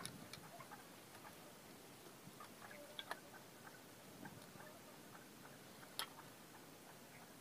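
Faint scattered clicks and taps of thin bamboo sticks being handled and fitted together, with a sharper click about six seconds in, over near silence.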